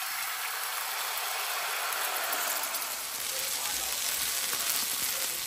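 Marinated chicken strips sizzling in hot oil in a flat frying pan: a steady, even hiss.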